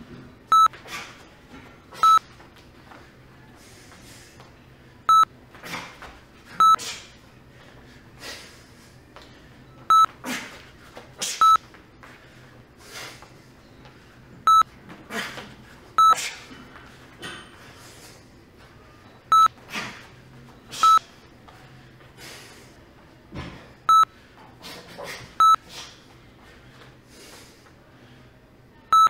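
Hand-speed test timer track: short, loud electronic beeps in pairs one and a half seconds apart, a new pair about every four and a half seconds. The first beep of each pair cues a punch combination and the second marks time up. Between the beeps come short rushing sounds from the boxer shadowboxing.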